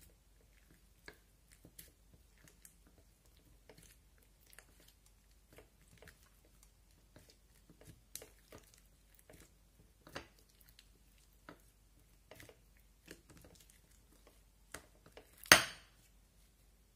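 Orange slime mixed with shaving cream being kneaded and stretched by hand, giving an irregular run of small sticky clicks and pops, with one much louder pop near the end.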